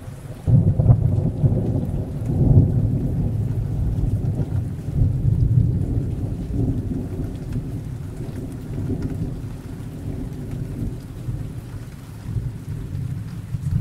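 Rolling thunder over steady rain: a rumble breaks in suddenly about half a second in, peaks twice in the first few seconds, then slowly rumbles away while the rain keeps falling.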